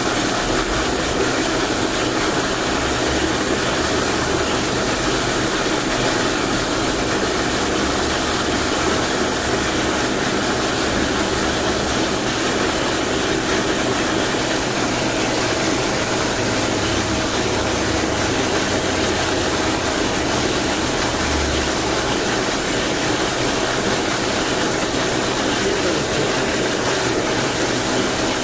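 Electric water pump running steadily, an even mechanical hum and rush with a faint steady whine, unchanging throughout.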